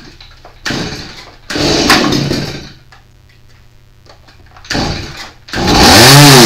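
Stihl MS170 two-stroke chainsaw being pull-started: a few rasping pulls of the recoil starter, then near the end the engine catches and runs, its pitch rising and then falling. The engine has low compression, under 25 PSI, so it will run but dies out as soon as it is given throttle.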